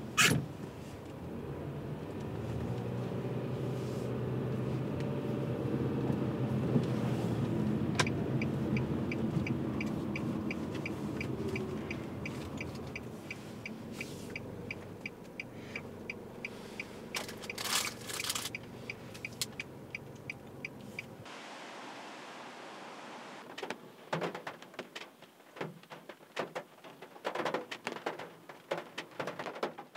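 Car running inside the cabin: engine and road rumble swell and then fade as it slows, with a turn-signal indicator ticking evenly from about 8 seconds in. About two-thirds through the rumble stops and is followed by irregular taps and knocks.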